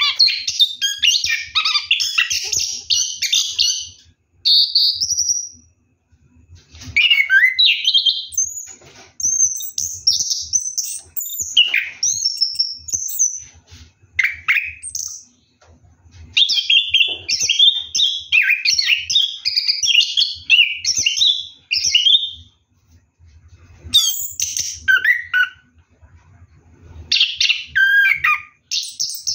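Orange-headed thrush singing in long, rapid, varied phrases of up to about six seconds, with short pauses between them: the continuous rolling song that keepers call ngeroll.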